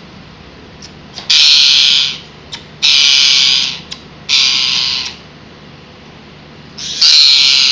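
A parrot screaming: four loud, harsh screeches of under a second each, the first about a second in, the last near the end.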